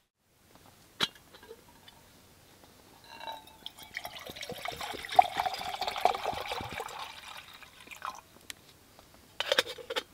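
Water poured from a plastic bottle into a titanium camping pot, splashing and filling for about five seconds. It is preceded by a single clink of the pot's metal lid being lifted, and followed by a few sharp clicks and knocks near the end.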